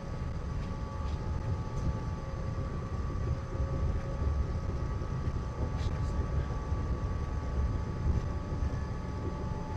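Cabin sound of a Walt Disney World monorail train running along the beam: a steady low rumble with a steady electric whine over it, and a few faint clicks.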